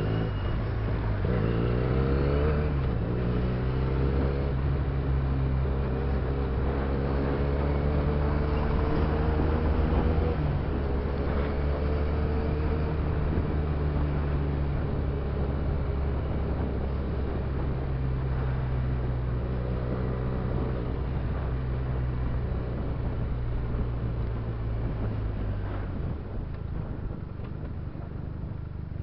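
Benelli TNT300's parallel-twin engine running under way in city traffic, its note rising with the throttle and stepping down at gear changes several times, over wind and road noise. Near the end the engine note falls away as the throttle is closed.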